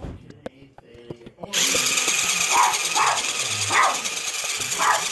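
The Cyber Crawler toy robot's small electric motor and gear drive whirring as its gear-wheel legs turn. It starts about one and a half seconds in and stops near the end.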